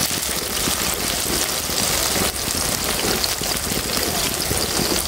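Battered banana pieces deep-frying in hot oil in a wok: a steady, dense crackling sizzle.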